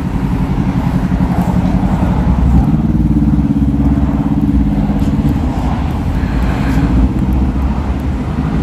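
Street traffic: motor vehicle engines running close by, with a steady low engine hum that grows stronger a few seconds in and eases near the end.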